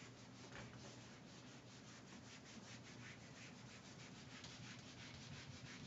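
Whiteboard eraser rubbing back and forth across a whiteboard: faint, rapid, even strokes of rubbing, several a second, as marker drawing is wiped off.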